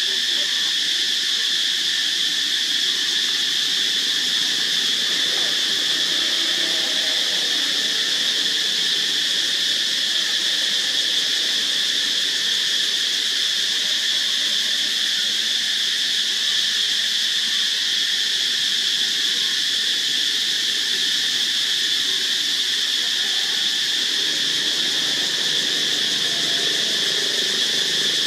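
Steady, high-pitched chorus of insects in tropical forest, a shrill drone that holds without a break.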